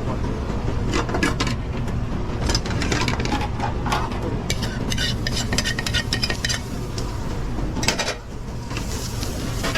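Metal pans and utensils clattering on a commercial kitchen line in several bursts of sharp clicks and knocks, over a steady low rumble.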